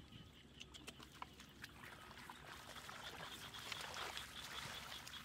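Hands scooping and sloshing through shallow muddy water and mud, with small splashes and clicks, growing louder after about two seconds.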